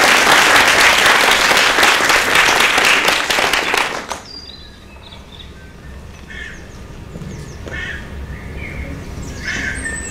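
Audience applauding for about four seconds, then dying away quickly. After it, scattered bird chirps that grow busier near the end.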